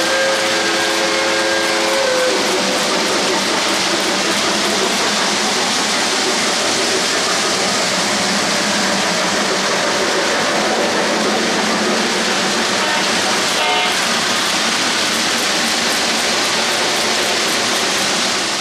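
O-gauge model freight cars rolling past on three-rail track: a steady rolling rattle of metal wheels on the rails. A short multi-note horn chord sounds in the first two seconds, and rapid fine clicking comes in over the last few seconds.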